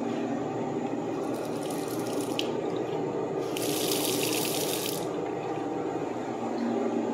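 Chrome two-handle bathroom faucet turned on, water streaming into a ceramic sink basin for about a second and a half before it is shut off abruptly; a shorter, fainter run of water comes a couple of seconds earlier. A steady low hum runs underneath.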